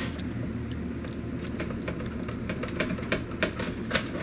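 Small irregular mouth clicks and smacks from eating a chocolate-covered strawberry close to the microphone, getting denser toward the end, over a low steady hum.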